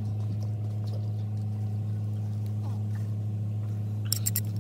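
A steady low hum, like a motor running, with a quick run of sharp clicks starting near the end.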